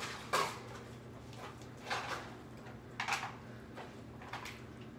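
Cats eating from plastic bowls on a tile floor: a few short, soft clicks and scrapes, spread out about a second apart, over a faint steady low hum.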